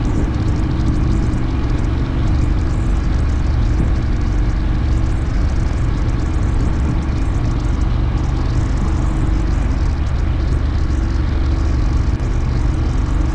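Ducati Monster R's V-twin engine running steadily at an even cruise of about 30 mph, with wind and road noise, heard from a camera mounted on the bike.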